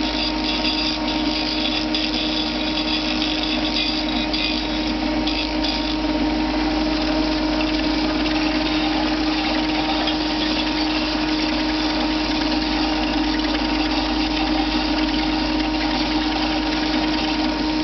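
Electric sander running with a steady motor hum while a wooden stick end is sanded round on it; a scratchy sanding hiss sits over the hum for the first six seconds or so.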